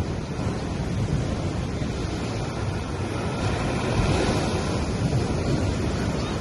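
Sea waves washing onto a beach, a steady surf rush that swells as a wave breaks about halfway through, with a low rumble of wind on the microphone underneath.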